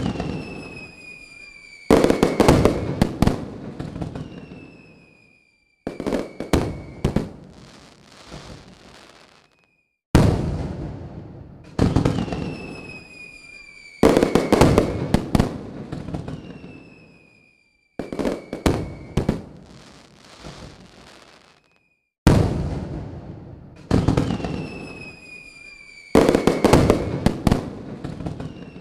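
Fireworks going off: clusters of sharp bangs and crackling every few seconds, with falling whistles, each cluster dying away or cutting off abruptly.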